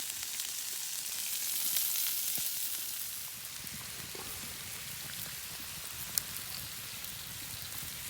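Food sizzling on a hot iron griddle: a steady hiss with small crackles, easing slightly after about three seconds, and one sharp click about six seconds in.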